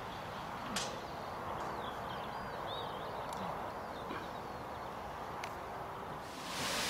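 Outdoor field ambience: a steady hiss with faint bird chirps and a few light clicks, swelling into a louder rushing hiss near the end.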